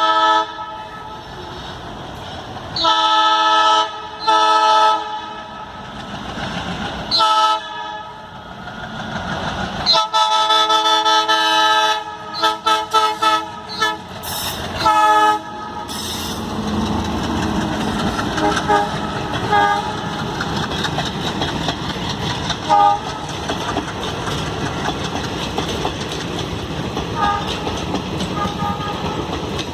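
Alco diesel locomotive's air horn sounding repeatedly as the express accelerates: a few long blasts, then a quick string of short toots. Then the passing train gives a steady rumble with clickety-clack of wheels over the rail joints.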